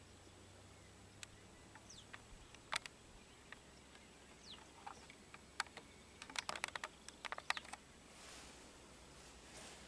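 Quiet field ambience with a few short, falling bird chirps and a rapid cluster of sharp clicks and ticks about six to seven and a half seconds in, then a soft rustle near the end.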